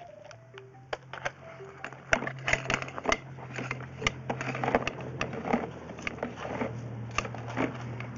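Irregular clicks, knocks and rattles over a steady low electrical hum, from a sewer inspection camera and its push cable being worked down a drain line.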